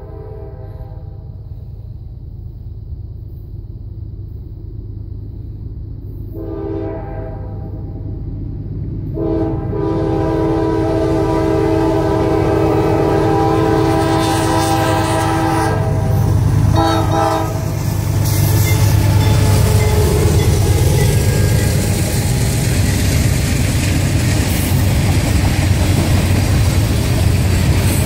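CSX freight train's diesel locomotives approaching and passing close by, sounding the air horn in several blasts, the longest lasting about six seconds. The low engine rumble grows steadily and is loudest in the last ten seconds as the locomotives go by, followed by the noise of the cars rolling past.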